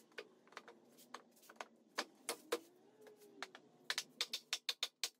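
Sharp wooden knocks and clicks of pressure-treated 2x6 stair treads being handled and fitted between ladder side rails. The clicks are irregular at first and become a quick run of clicks about four seconds in.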